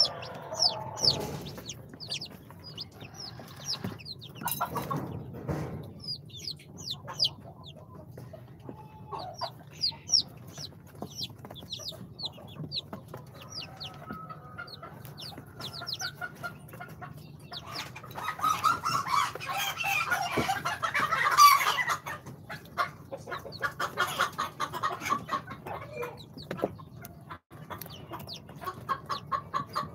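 A brood of day-old chicks (Ispenç, Brahma, bantam Cochin and Sultan breeds) peeping: many short, high, falling cheeps overlapping one another, with a louder, denser stretch of calling for a few seconds about two-thirds of the way in.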